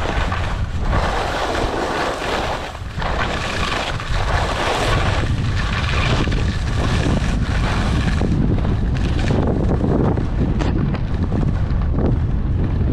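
Wind buffeting a ski-mounted action camera's microphone during a fast downhill run, with the hissing scrape of skis carving turns on groomed snow. The hiss swells and fades with each turn over the first few seconds, then a heavier wind rumble takes over from about four seconds in as speed builds.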